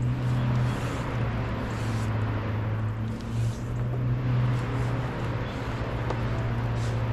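Steady low mechanical hum, with a few faint light clicks and rustles.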